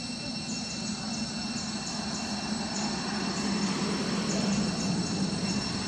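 A low, steady engine drone that slowly grows louder, over a steady high insect buzz with small repeated chirps.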